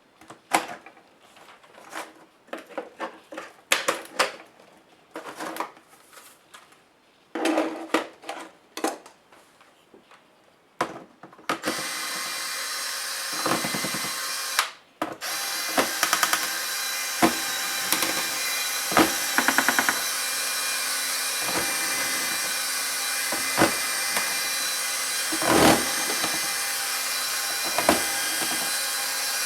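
Clicks and short scrapes of plastic parts and screws being handled during laptop disassembly, then, about twelve seconds in, a small power tool starts running steadily, with occasional clicks and knocks over it.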